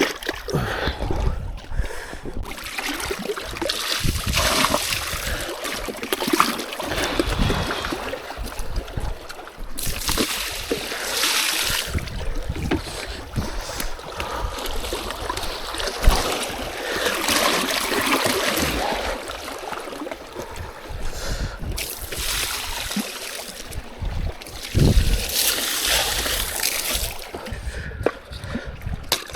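Strong wind buffeting the microphone in gusts, with water splashing and lapping.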